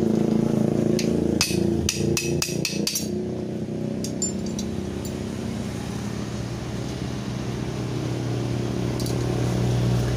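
Hammer blows on steel, knocking the old bushing out of a motorcycle swingarm pivot: a quick run of sharp metallic strikes in the first three seconds, under a steady low hum.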